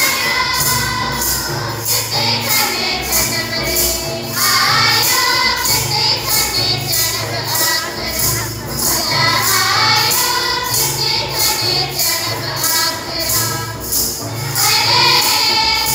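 Music with a steady beat, with high percussion strokes several times a second and a voice singing in phrases over it.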